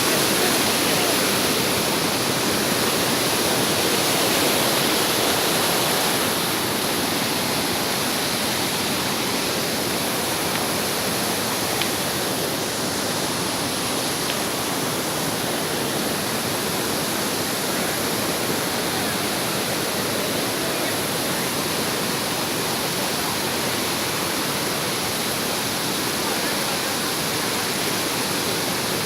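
Steady rush of a waterfall and fast-flowing river water.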